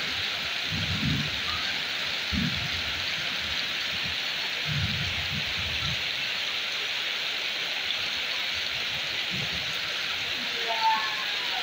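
Heavy rain pouring steadily, with a few short low thuds in between and a brief high call or voice near the end.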